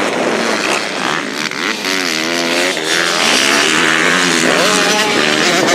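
Four-stroke Honda CRF motocross bike engine, revving up and down repeatedly as it is ridden around the dirt track and over a jump.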